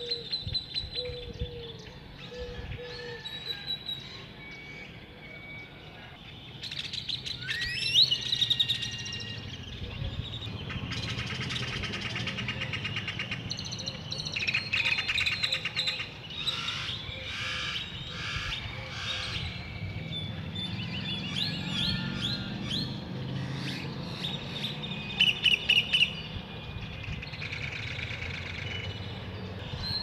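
Several wild birds calling and singing at once: repeated chirps, rising whistled notes and fast rattling trills, over a low steady background rumble.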